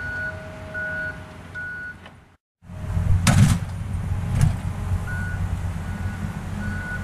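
Construction vehicle's reversing alarm beeping about every three quarters of a second over the low rumble of its engine. The sound cuts out briefly a little over two seconds in, then the engine rumble returns louder, with two sharp knocks.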